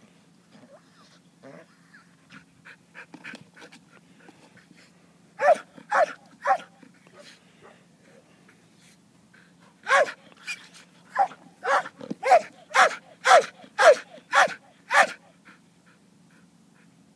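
A dog barking in loud, short single barks, as guard barking in protection training: three about five seconds in, then a run of about ten from about ten to fifteen seconds in.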